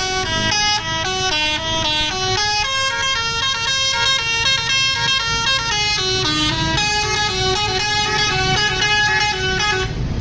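Bus telolet horn (a multi-trumpet melodic air horn) playing a quick tune of short notes at changing pitches over engine and road noise. The tune cuts off just before the end.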